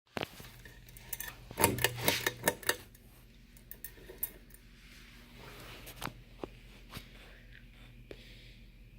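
Quorum Celtic ceiling fan running with a steady motor hum. Around two seconds in comes a burst of loud rattling clicks, followed by scattered single clicks. This fan is slightly off balance.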